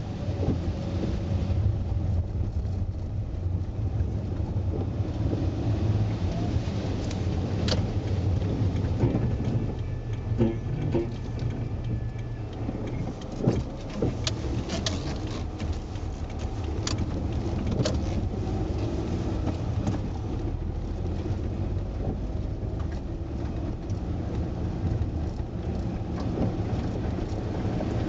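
A car driving, heard from inside: a steady low rumble of engine and tyres on the road, with scattered clicks and knocks from bumps along the way.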